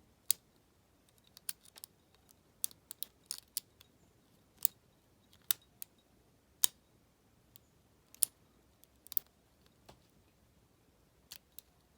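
Sharp, irregular clicks of a lock pick snapping across the pins inside an Abus 74/40 lockout padlock, one to three a second at uneven intervals.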